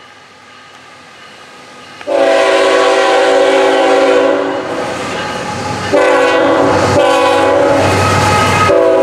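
CSX diesel freight locomotive's air horn sounding a loud multi-note chord as a loaded coal train approaches: one long blast starting about two seconds in, then further blasts from about six seconds in. Beneath the horn, the low rumble of the locomotives grows as they draw close.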